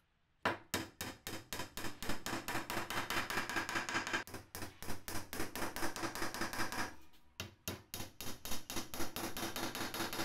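Hammer rapidly striking glued wooden dowels to drive them down into their holes in a wooden board, about five blows a second, with a brief pause about seven seconds in.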